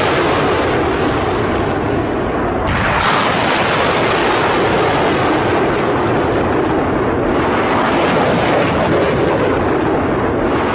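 Rockets firing in succession from a ground launcher: a loud, continuous rushing noise of rocket exhaust, surging again with a fresh launch about three seconds in and once more about seven seconds in.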